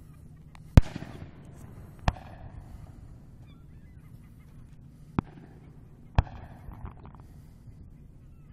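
Distant aerial firework shells bursting: four sharp booms, the loudest about a second in with a trailing echo, then three more at about two, five and six seconds.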